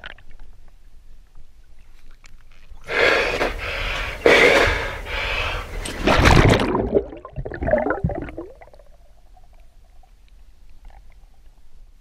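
Shallow pool water splashing and sloshing in several loud bursts as a person gets down into it, followed by fainter gurgling.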